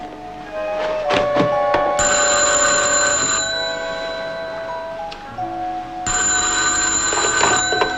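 Telephone bell on a rotary desk phone ringing twice, each ring about a second and a half long, over background music.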